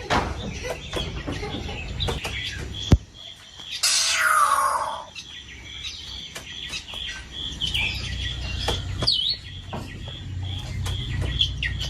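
Birds in an aviary: a small bird gives a steady string of high chirps, about three a second, and a harsh call slides downward about four seconds in. Scattered sharp clicks, one loud one just before it, and a low rumble that builds near the end.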